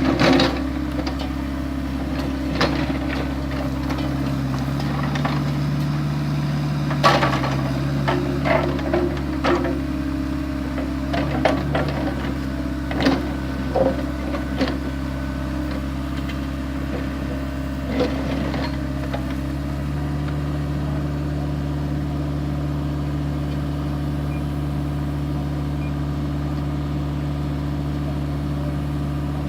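Excavator's diesel engine running steadily while it digs a trench, with scattered clanks and knocks from the digging over the first two-thirds. About two-thirds in the engine note shifts slightly and then runs on evenly.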